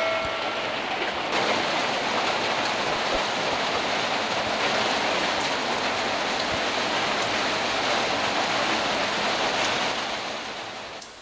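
Steady rain falling on a flooded yard, an even hiss of drops splashing into standing water, dropping away near the end.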